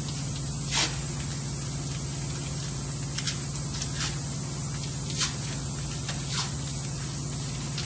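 Tape being pulled off a roll in several short rips, the loudest about a second in and about five seconds in, as a wire splice is wrapped. Under it runs a steady low hum with a high hiss.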